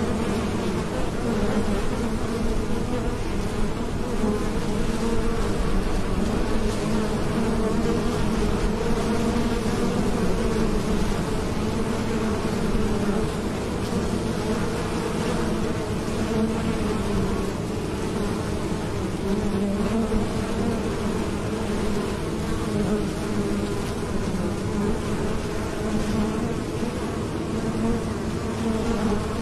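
Many honeybees buzzing at a hive entrance as foragers land and take off, a steady, wavering hum.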